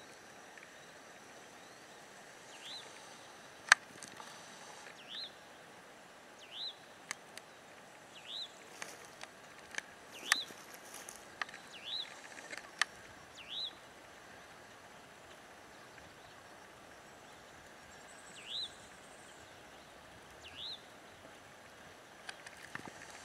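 A bird repeating a short, high, curved call note every one to two seconds over a steady hiss of breeze. A few sharp clicks come through as well, the loudest about four seconds in.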